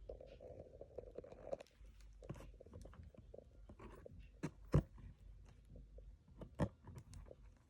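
Close-up crunching and chewing of thick cornstarch in the mouth: irregular soft crunches and clicks, two sharper crunches a little after halfway and near the end. The uploader finds this batch not very squeaky.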